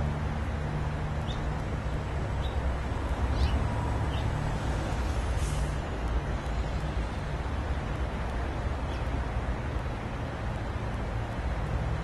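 Steady low outdoor rumble, like distant road traffic, with a few faint short bird chirps and a brief hiss about five and a half seconds in.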